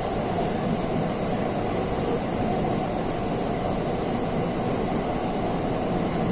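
Steady rumble and rush of a metro train running, heard from inside the passenger car.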